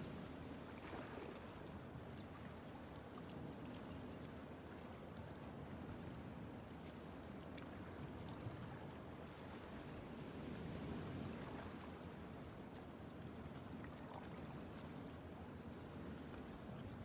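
Water lapping against shoreline rocks, with a steady low background noise.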